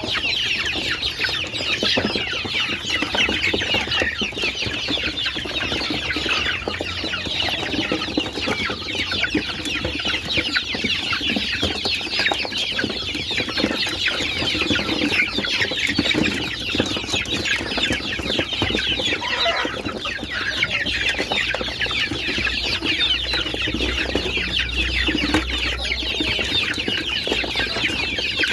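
Many young ayam kampung (Indonesian native) chickens peeping and chirping together: a dense, unbroken chorus of short, high, overlapping calls.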